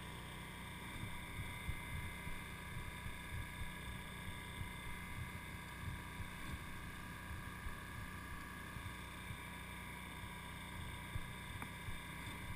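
Electrofishing boat's motor and generator running steadily: an even drone with several steady high whining tones over a low rumble.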